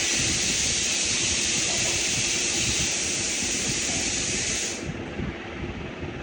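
A steady hiss that starts abruptly and cuts off after about five seconds.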